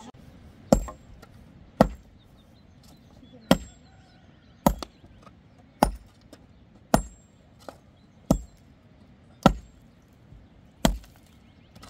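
A long-handled pick striking stony soil at the base of a wooden post being set, about one sharp strike a second, several with a short metallic ring.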